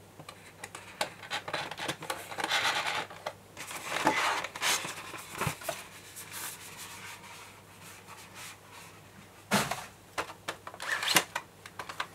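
Hands handling a model train car's box and clear plastic packaging: irregular rustling, rubbing and small clicks and taps, in two busier spells, the second near the end.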